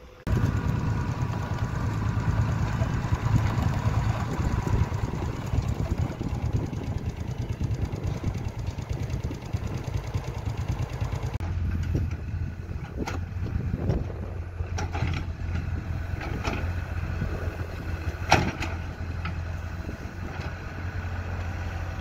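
Small tracked excavator's engine running as it digs soil, a steady low hum with several sharp knocks and clanks from the bucket and arm, the loudest late on.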